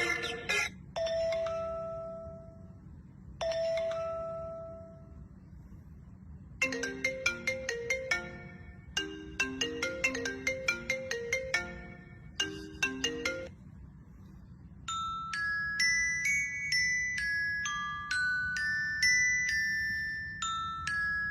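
Phone ringtones played one after another: first two short two-note chimes, then a quick bell-like melody with repeated notes, then a brighter, higher tune in the second half.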